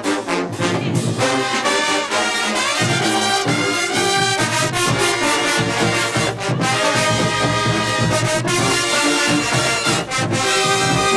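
College marching band playing a loud brass tune in the stands, with sousaphones, trombones and trumpets over a driving drum beat.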